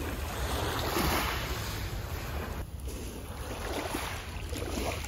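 Small waves lapping and washing over a pebble beach, with a swell of wash about a second in. Wind buffets the microphone with a low rumble.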